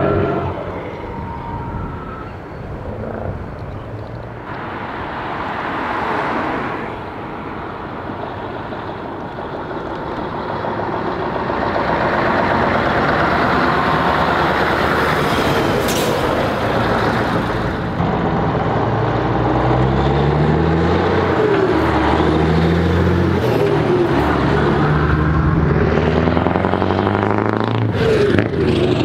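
Heavy diesel tractor units with loud exhausts driving past in convoy. In the second half one truck accelerates through its gears, the engine note climbing and dropping back with each shift, about every two seconds.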